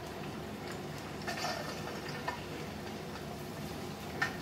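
Hot oil sizzling and bubbling steadily around lumps of fish paste deep-frying into satsuma-age fish cakes, with a few light clicks and a sharp click near the end.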